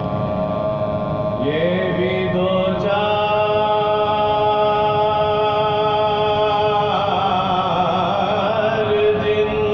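Soz-khwani recitation of a Marsiya: voices chanting in long held notes, sliding up into a sustained note about a second and a half in, with a more ornamented passage near the end.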